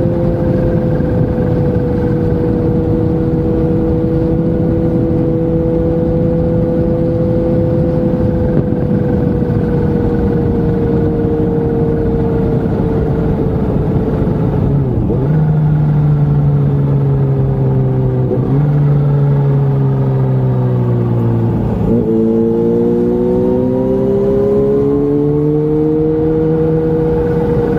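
Motorcycle engine under way with wind rush: a steady cruising note for about half the time, then the pitch drops and changes with gear shifts about three times as the bike slows, and it rises again near the end as the bike accelerates.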